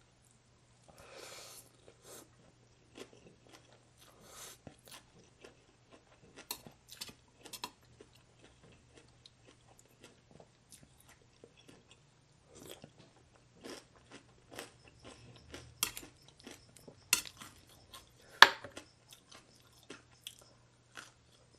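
A person chewing and crunching, close to the microphone, eating rice noodles with crisp fried chicken skin and fresh vegetables: a run of short crisp crunches and mouth clicks, with a few sharp louder bites about two-thirds of the way in.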